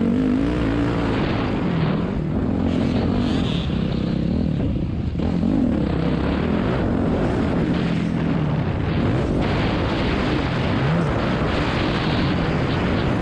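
Dirt bike engine revving up and down as the rider rolls the throttle and shifts gears, pulling harder toward the end as speed builds, with wind rushing over the microphone.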